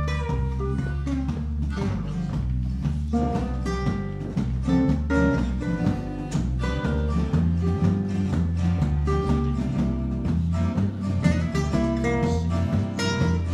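Live acoustic band playing an instrumental passage: acoustic guitars strumming and picking over steady low bass notes.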